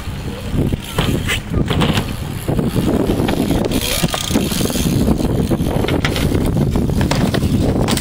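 Steady rumble of wind on the camera microphone mixed with BMX bike tyres rolling over skatepark concrete. Scattered clicks and knocks run through it.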